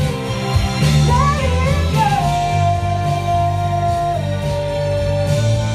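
A woman singing a ballad into a handheld microphone over a recorded backing track. About a second in her line wavers and slides upward, then she holds long notes, stepping down to a lower one about four seconds in.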